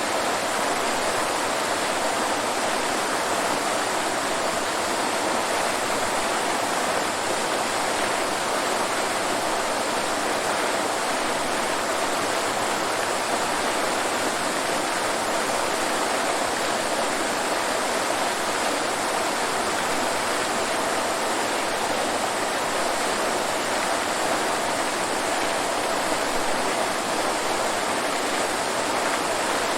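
Waterfall: water falling and rushing in a steady, even roar with no breaks.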